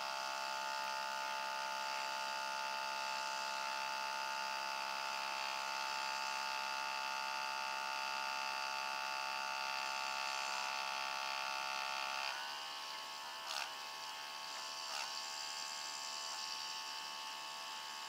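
The OutIn Nano portable espresso machine's electric pump running with a steady whine, pushing water through a coffee pod to express an espresso. About twelve seconds in its tone drops and roughens, with three short spurts of noise after.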